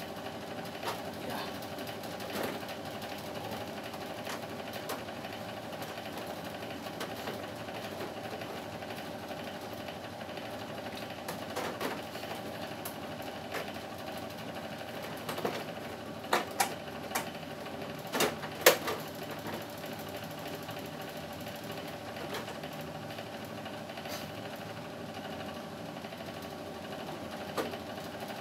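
A steady machine hum with several held tones throughout, with a few sharp plastic clicks and knocks about sixteen to nineteen seconds in as the air conditioner's front panel is handled.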